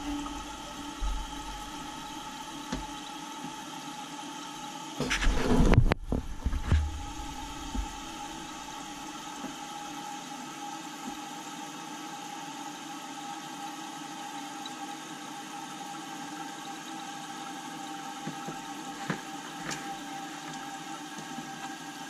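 Newly installed Fluidmaster 400 toilet fill valve refilling the tank: a steady hiss of inflowing water with a faint steady whistle. About five seconds in, a brief loud burst of knocking and handling noise from hands at the tank.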